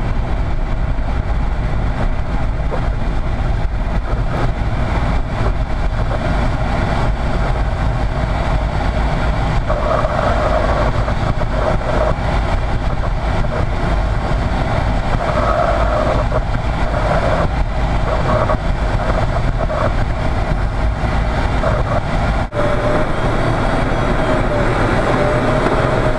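Steady loud rush and rumble of air and airframe inside a glider's cockpit during takeoff and flight, with faint pitched tones coming and going in the middle and a thin steady tone near the end.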